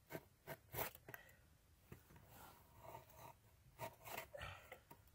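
Faint, short scratching and a few sharp clicks as marks are made on aspen logs.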